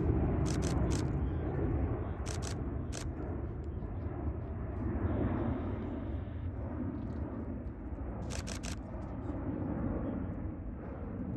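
Airbus Beluga XL's twin Rolls-Royce Trent 700 turbofans, a steady low rumble as the jet flies past overhead. Quick groups of three sharp clicks come just after the start, at about two and a half seconds, and at about eight and a half seconds.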